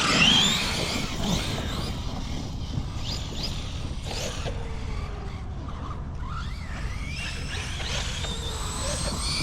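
Brushless electric motor of a 6S RC basher car whining as it is throttled, rising in pitch as it speeds up. The whine is strongest about the first half second and again near the end, and fainter in between, over a steady low rumble.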